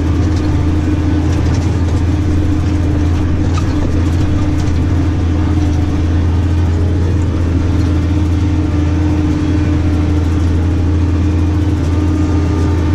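New Holland tractor engine running at a steady working speed, heard from inside the cab, a constant low drone with no change in pitch.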